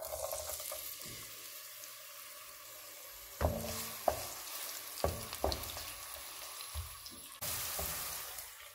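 Chopped onion hitting hot oil in a granite-coated pot and sizzling as it fries. The sizzle starts suddenly, and from about three seconds in a wooden spoon stirring the onion knocks against the pot about half a dozen times. The sizzle swells louder near the end.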